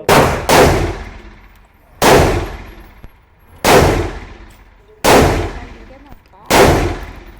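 Six 12-gauge shotgun shots, each a sharp blast with a trailing echo: two in quick succession at the start, then one about every second and a half.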